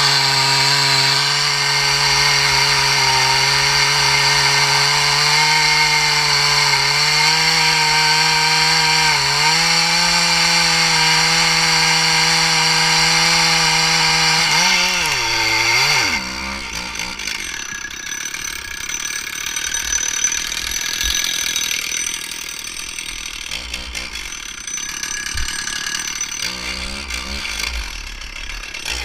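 Two-stroke chainsaw at full throttle, cutting wood at a steady high pitch. About halfway through, the revs dip and rise briefly. The saw then falls back to a much quieter, uneven running sound.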